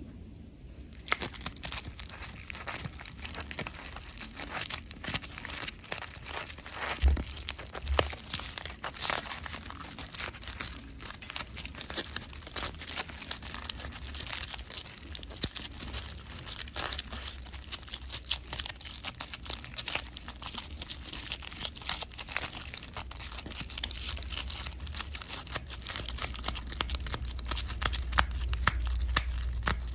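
Fingers rubbing and prising seeds out of a dried sunflower head: dry seeds and papery bracts crackle and rustle as they come loose, a dense run of small clicks that starts about a second in and carries on without a break.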